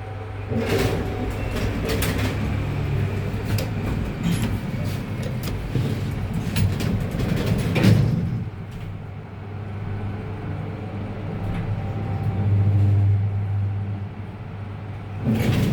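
1991 Fujitec elevator travelling, its drive giving a steady low hum that swells for a couple of seconds near the end, with scattered knocks and a louder clunk about eight seconds in.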